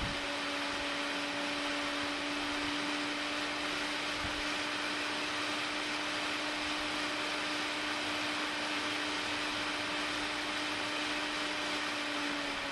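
Small electric motor, powered from a bench supply, spinning at a steady speed. It gives a constant-pitch hum over an even airy whir.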